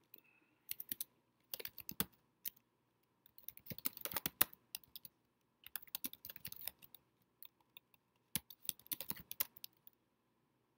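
Typing on a computer keyboard: quick bursts of keystrokes with short pauses between them, stopping shortly before the end.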